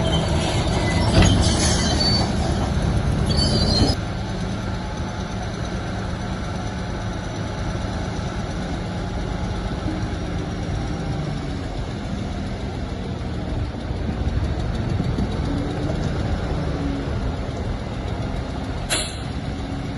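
Heavy diesel earthmoving machinery running, most likely a crawler bulldozer: a steady low engine drone, with high metallic squealing and clanking from the tracks over the first few seconds. The squealing stops abruptly about four seconds in, leaving the engine drone, and there is one sharp click near the end.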